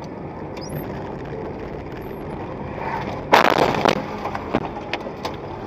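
Steady road noise, then about three seconds in a sudden loud crash lasting under a second as vehicles collide, followed by a few smaller knocks and clatters.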